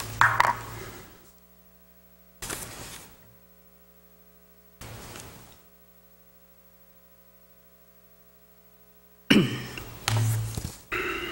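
Paper handouts rustling in a few short bursts as they are handled and leafed through, over a steady electrical hum; the loudest handling comes near the end.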